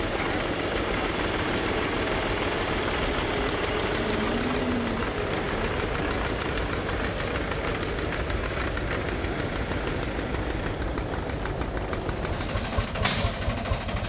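Diesel tractor engine running steadily under a dense mechanical clatter. A few sharp scrapes or strikes come near the end.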